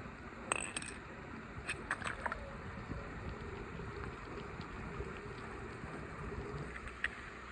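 A die-cast toy car dropping into a swimming pool: a small splash about half a second in, a few light ticks of water over the next two seconds, then a faint steady wash of pool water.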